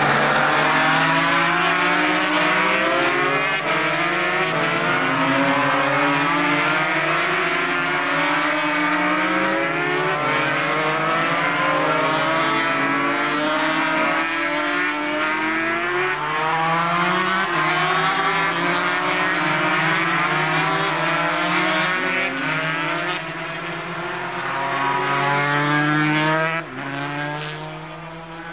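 Several racing motorcycle engines revving up and down as the bikes pass through a corner, their pitches overlapping and rising and falling. The level drops suddenly near the end.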